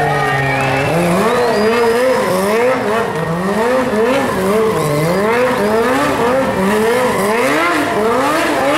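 Sport motorcycle engine revved hard during a smoky rear-tire burnout: held at high revs at first, then from about a second in surging up and down over and over, about one and a half times a second, over the hiss of the spinning tire.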